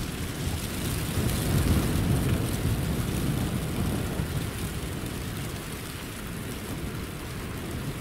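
Wind rumbling on the microphone, a low buffeting noise that swells a second or two in and then eases.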